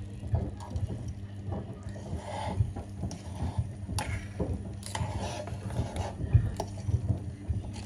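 A metal utensil stirring a thick tomato-and-egg sauce in a small stainless steel saucepan, clicking and scraping against the pan, with a steady low hum underneath.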